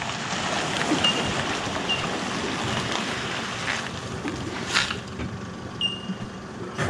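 Water splashing and churning as a boat trailer is backed down a ramp into shallow water, with a few short high chirps over it.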